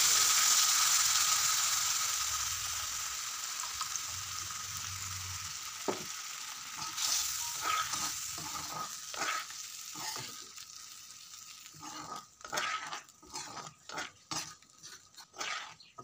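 Boiled moong dal poured into a kadai of hot oil and fried potatoes sizzles with a hiss that dies away over about ten seconds as the liquid cools the oil. From about six seconds in, a metal spatula stirs the dal, scraping and knocking against the pan in a run of short strokes.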